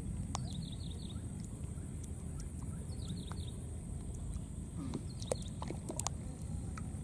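A bird calling in short runs of four or five quick, high, falling notes, repeated about every two to three seconds, over a steady low rumble. A few sharp clicks come in the second half.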